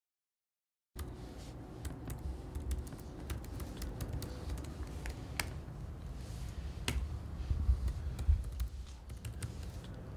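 Typing on a laptop keyboard: irregular key clicks over a low room rumble, starting about a second in after total silence.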